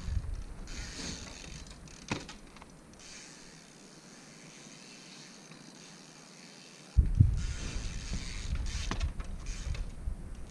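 Wind rumbling on the microphone, dropping away for a few seconds in the middle and coming back suddenly, with a few sharp knocks and clicks from a street trials bike being ridden and hopped.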